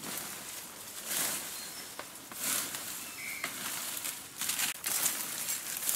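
Rustling and crackling of dry leaves and undergrowth as a person pushes through the plants, coming in uneven bursts every second or so.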